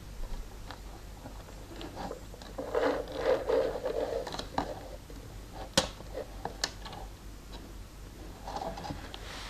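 Handling noise from a Lego rubber-band gun: scattered small plastic clicks and scraping, with a sharp click about six seconds in and another shortly after.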